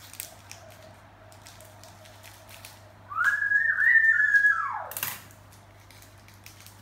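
A single loud, high whistle-like whine about three seconds in, lasting about a second and a half: it rises, wavers and then slides down as it fades. Around it, faint light clicks and crinkles of a chocolate wrapper being handled.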